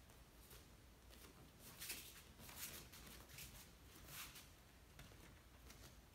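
Near silence, with faint soft steps of bare feet on foam mats at a walking pace, about one step a second.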